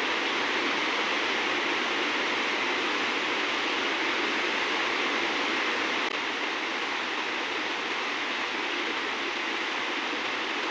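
Steady rush of flowing water, an even hiss with no rhythm, dipping slightly about halfway through.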